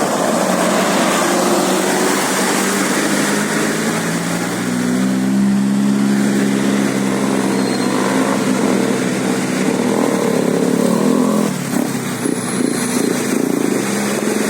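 A bus engine passing close by over steady road traffic noise. Its even hum swells about a third of the way in and falls away after about eleven seconds.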